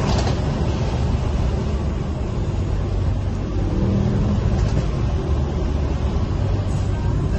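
Mercedes E 63 AMG's V8 engine pulling hard under acceleration, heard from inside the cabin as a steady deep drone over road and wind noise.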